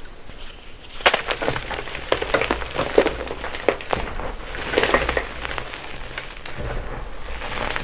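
Blocks of gym chalk being crushed and crumbling to powder: a dense, grainy crackle that comes in about three stronger bouts, with lighter crumbling in between.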